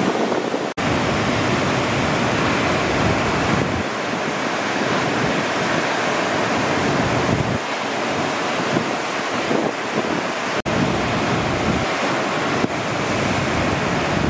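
Ocean surf breaking and rushing, with wind noise on the microphone. The sound drops out for an instant twice, about a second in and again about ten seconds in.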